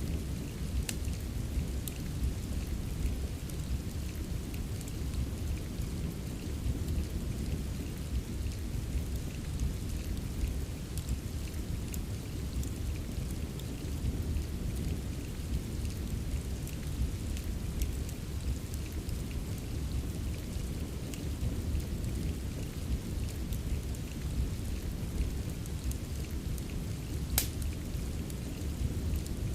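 Steady rain with a constant deep low rumble beneath it, scattered with sharp pops and crackles of a wood fire in a fireplace; one crisp crackle stands out near the end.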